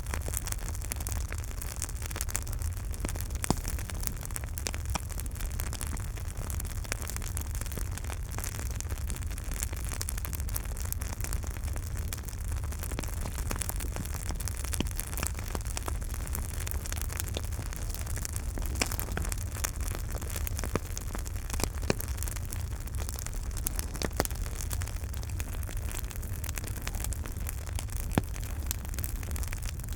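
Campfire burning: a steady low rumble with frequent small crackles and a few louder pops.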